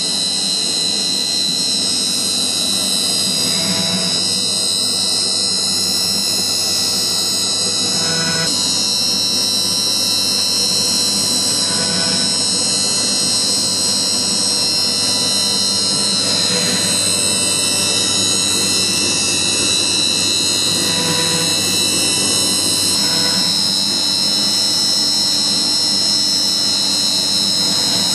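Steady high-pitched whine of a CNC router's spindle running at about 20,000 rpm while its cutter carves a relief into a pine panel.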